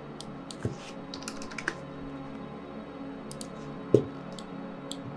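Computer keyboard typing: a quick run of keystrokes about a second in, a few more a couple of seconds later, and one louder single click about four seconds in.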